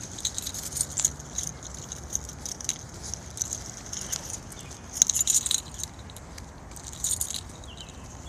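2017 Nissan Micra SV engine running with a fast, light metallic tapping that comes and goes in clusters over a steady low hum. The owner takes this tapping for an engine fault that began before 1,200 km.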